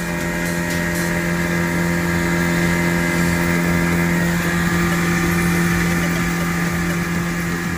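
A small boat's outboard motor running steadily at cruising speed, a constant drone that swells slowly and eases off slightly near the end.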